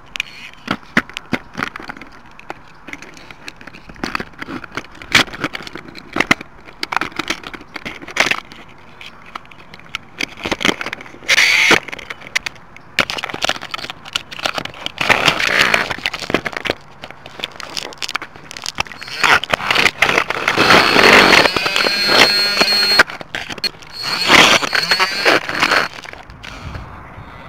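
Clicks, knocks and rubbing as a keychain spy camera mounted on a Hot Wheels Sizzlers toy car is handled, fingers brushing right against its microphone. In the later part there are louder stretches of rough noise with a steady high whine.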